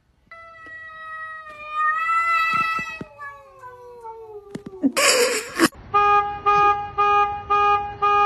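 A cat's long, drawn-out yowling call, falling slowly in pitch over about four seconds. A short burst of hiss-like noise follows, then a car horn beeping in short blasts about twice a second.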